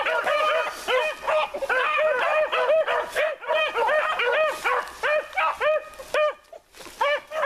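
A pack of beagles baying, several voices overlapping in quick, short, ringing barks. They thin out briefly near the end, then pick up again.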